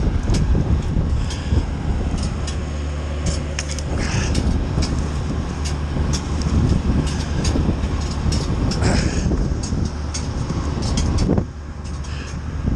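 Wood chipper running steadily over the drone of an engine, with frequent sharp cracks and snaps as pine branches are fed in and chipped. The loudness dips briefly near the end.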